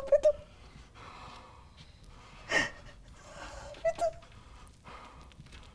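A distressed person breathing hard: short whimpering sounds at the start and about four seconds in, and a sharp gasp about two and a half seconds in.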